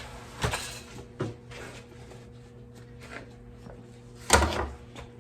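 Handling noises from a lawn tractor tire being turned and felt over by hand: a few knocks and rustles, the loudest a thump about four seconds in, over a steady hum.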